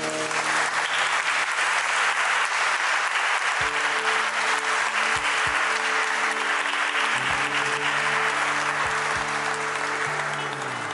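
Guests applauding, with soft, slow instrumental music held underneath; the clapping starts at once and fades away near the end.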